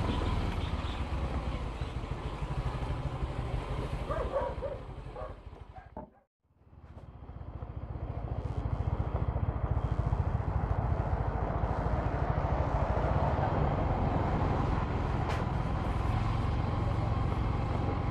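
Engine and road noise of the vehicle carrying the camera, running steadily with a low, even pulsing. It fades out to near silence about six seconds in and comes back up within two seconds.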